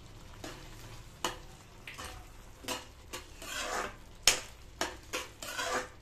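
Metal spoon stirring thick carrot halwa in a stainless steel pan, with irregular scrapes and clicks of the spoon against the pan; the sharpest click comes about four seconds in.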